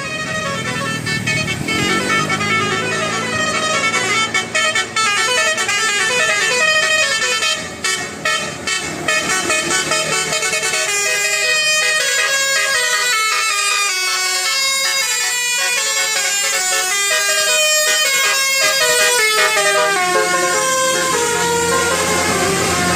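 Bus telolet horn, a multi-tone musical horn, playing a tune in quick stepping notes, with a bus engine running underneath.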